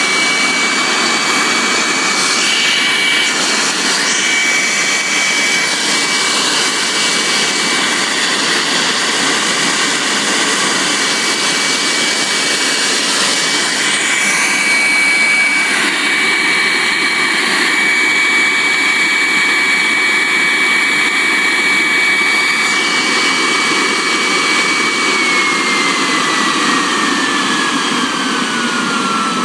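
High-vacuum brushless vacuum cleaner motor, rated for 30 kPa, running at high speed with a loud rushing of air and a steady high whine. Near the end the whine starts to fall steadily in pitch.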